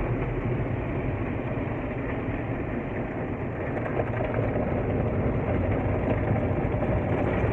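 Automatic car wash working over the car, heard from inside the closed cabin: a steady rushing wash of water and machinery over a low rumble, growing slightly louder in the second half.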